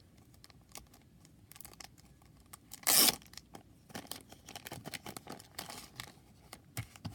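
A sealed pack of trading cards being torn open and its wrapper crinkled. There are scattered small crackles and clicks throughout, and one loud, short tear about three seconds in.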